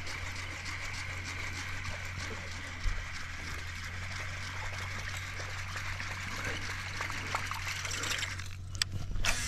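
Water trickling and splashing as a steady hiss, over a low steady hum; the hiss breaks off near the end with a couple of sharp clicks.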